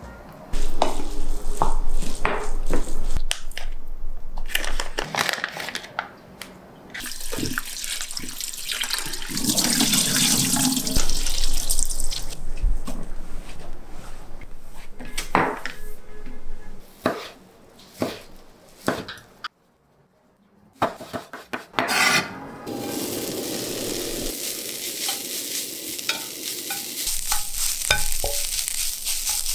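A run of kitchen prep sounds. First a wooden spoon knocks and scrapes as it mixes rice in a glass bowl. Then water splashes as fried tofu pouches are rinsed and squeezed at a sink, and from about two-thirds of the way through, strips of fried tofu are stirred in a pan, sizzling steadily.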